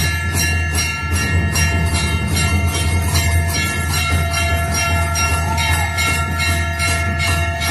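A bell rung rhythmically, about three strokes a second, over a steady droning tone and a low hum.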